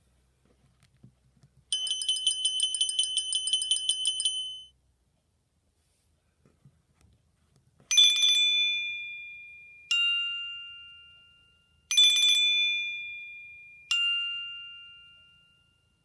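Nokia C2-01 ringtones played through a Sony Ericsson W595's loudspeaker: first a rapid trilling ring for about three seconds, then, after a pause, four bell-like chimes about two seconds apart, each fading away and alternating between a higher and a lower pair of notes.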